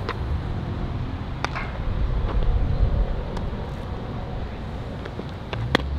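A few sharp pops from baseballs at infield practice, spaced a second or more apart, over a low steady rumble.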